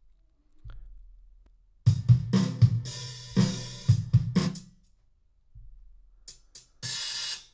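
A hip-hop drum loop with kick, snare and hi-hat plays for about three seconds, then stops. Near the end come short hi-hat sample hits, the last an open hi-hat ringing for about half a second.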